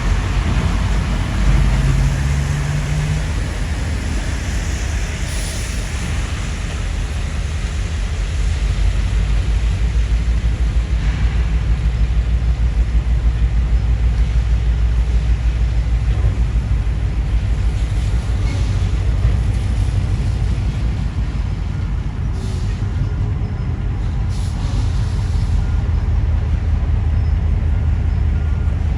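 Diesel engines of a pair of EMD G22UB locomotives running under way, a steady low rumble that grows louder about ten seconds in. Two short hisses come near the end.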